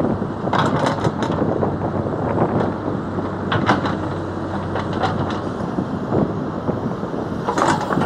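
Hydraulic excavator working in beach sand: its engine runs steadily while the boom and bucket move, with short clusters of clanks and scrapes about a second in, around three and a half seconds, around five seconds and again near the end.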